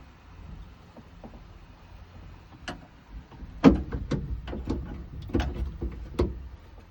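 A quick series of sharp clicks and knocks, starting near the middle with the loudest one first: car door parts and tools being handled during a power window repair.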